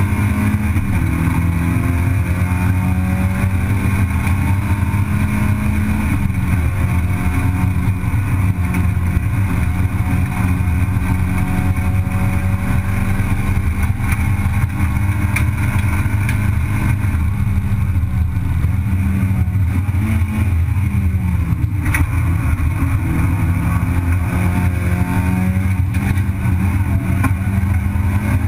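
Race car engine heard from inside the cabin, held at high revs with a steady note for long stretches. The pitch dips briefly and climbs back a few times: about a second in, around six seconds, and twice around nineteen to twenty-one seconds.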